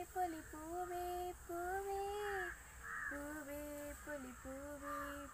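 A girl singing a Malayalam song unaccompanied, holding long notes that glide and step between pitches, dropping lower about three seconds in.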